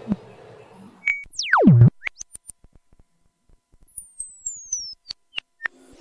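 Eurorack modular synthesizer playing sparse electronic blips and clicks, with a fast downward pitch sweep about a second and a half in and a slower falling glide about four seconds in.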